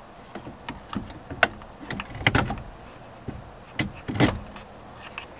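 Irregular knocks and clicks of a replacement power-folding tow mirror being handled and fitted onto the mirror mount of a Ram truck's door, with two louder knocks about two and a quarter and four and a quarter seconds in.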